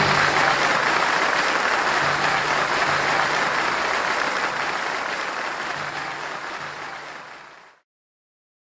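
Audience applauding, steady at first, then fading away and cutting off sharply near the end.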